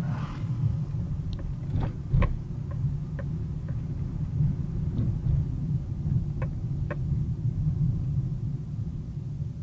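Car driving slowly, heard from inside the cabin: a steady low rumble of engine and tyres, with several short knocks, the loudest about two seconds in.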